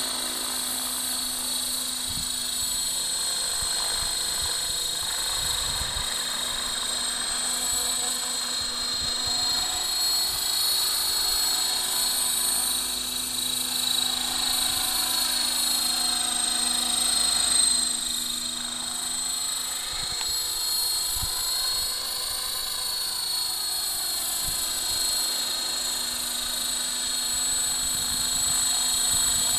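Electric radio-controlled model helicopters flying close by: a steady high-pitched motor and gear whine with rotor whoosh. Through the middle the pitch sways up and down as the helicopter manoeuvres.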